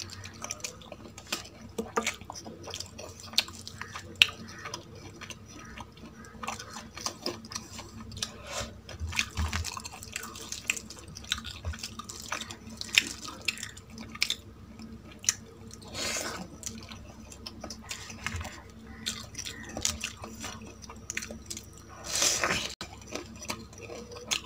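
Close-miked eating sounds: wet chewing and lip smacks of spicy chicken curry with rice, with many irregular sharp clicks. Two louder, longer sounds come through, one past the middle and one near the end.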